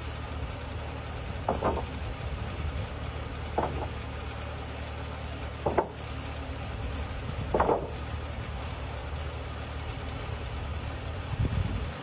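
Portable band sawmill's engine idling steadily between cuts. Four short wooden knocks about two seconds apart come as sawn boards are flipped over on the mill bed.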